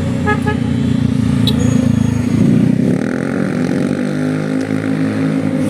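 Bus engine running loud and steady, its pitch rising about two and a half seconds in as it revs.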